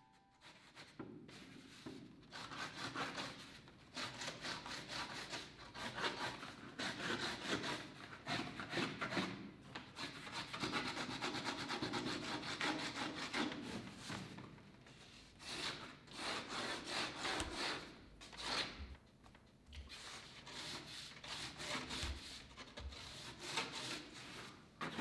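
Fountain pen nib scratching across rough, heavy drawing paper in quick runs of hatching strokes, with short pauses between runs.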